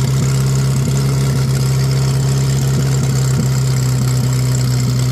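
Opel truck's petrol engine idling steadily, running on all cylinders.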